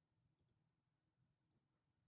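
Near silence: quiet room tone, with one faint click about half a second in.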